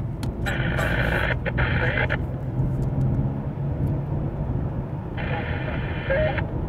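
Mercedes-Benz E240's M112 V6 engine pulling at full throttle under load after warm-up, a steady low drone that sounds normal. Two higher-pitched stretches of a second or so sound over it, one about half a second in and one near the end.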